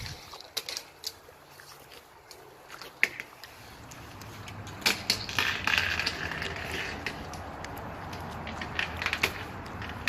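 Vinyl glazing trim strips being pressed into an aluminum window frame, clicking and snapping as they lock in. An irregular run of sharp snaps, with scraping of vinyl against the frame in the middle.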